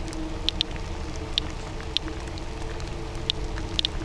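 Radiation Alert Inspector Geiger counter clicking: short, high clicks at irregular intervals, about two a second, each one a detected radiation count. Beneath the clicks runs a steady low rumble.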